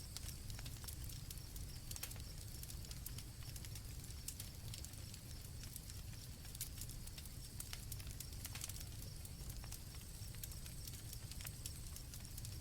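Campfire crackling, with scattered sharp pops over a low steady rumble of the burning fire. Crickets trill faintly in the background.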